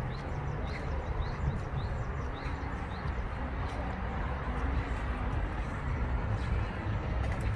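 Outdoor ambience: a steady low rumble with a small bird chirping repeatedly, about two short rising chirps a second, which stop a few seconds in.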